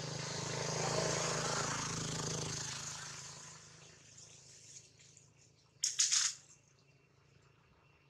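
A motor vehicle passing, its engine sound swelling and then fading away over the first three seconds. About six seconds in, a brief sharp crackle lasting about half a second is the loudest sound.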